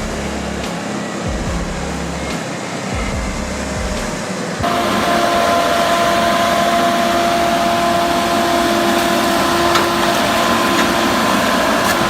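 Heavy wood-cutting machinery running loud and steady. About four and a half seconds in the sound cuts abruptly to a louder machine with a steady, even whine over the noise.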